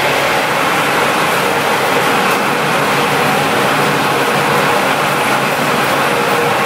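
Large 700 kW diesel generator set running steadily, its engine giving a dense, even drone with no change in speed.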